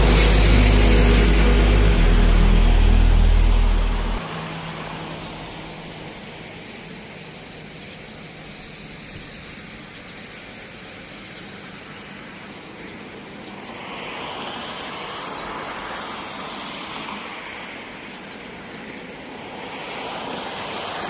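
A motor vehicle's engine runs close by, low and steady, and cuts off abruptly about four seconds in. After that comes the steady hiss of road traffic, swelling twice as vehicles pass.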